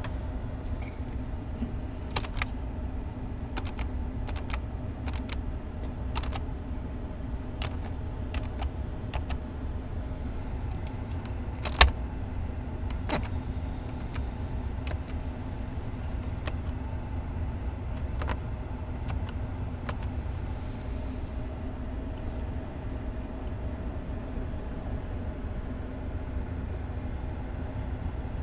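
Steady low hum inside the cab of a GMC Sierra pickup with the engine running, overlaid with scattered light clicks from dashboard buttons being pressed and the camera being handled. One sharper knock about twelve seconds in is the loudest sound.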